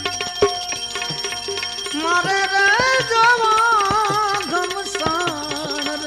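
Live devotional bhajan music: tabla strokes throughout, with an ornamented, wavering melodic line coming in about two seconds in.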